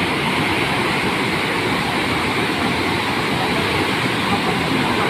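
Loud, steady rush of a muddy flash-flood torrent, fast brown floodwater churning without a break.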